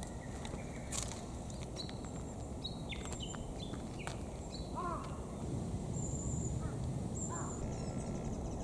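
Songbirds calling, a string of short high chirps and whistled notes, over a steady low background hum of outdoor ambience.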